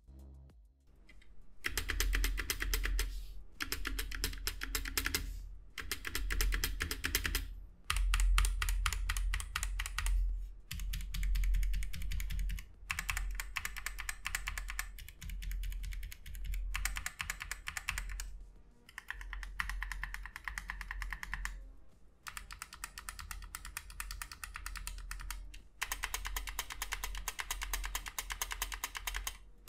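Typing on a tenkeyless mechanical keyboard with Gateron Yellow optical linear switches. Fast runs of key clacks come in bursts of a few seconds, with short pauses between them.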